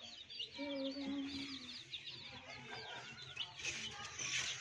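A group of young chicks peeping constantly, many short high cheeps overlapping one another, with a lower drawn-out sound about half a second in that lasts about a second.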